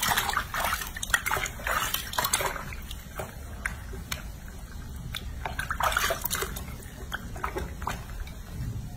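Water sloshing and splashing in a filled bathroom sink as a baby monkey is bathed in it, with many small sharp splashes; busiest in the first few seconds and again about six seconds in.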